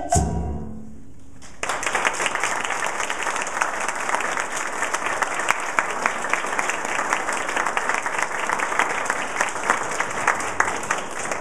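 A children's choir's last sung note dies away, then after about a second and a half the audience breaks into applause, many hands clapping steadily until it fades near the end.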